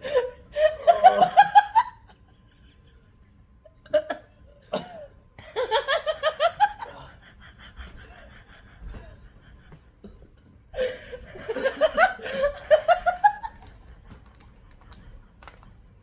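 Laughter in three bouts of quick pulses, each bout rising in pitch, with two short vocal catches between the first two bouts.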